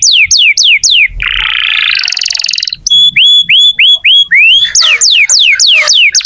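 Domestic canary in full song: a fast run of repeated downward-sweeping whistled notes, then a rapid buzzing trill about a second in, followed by a run of short rising whistles and more quick falling sweeps.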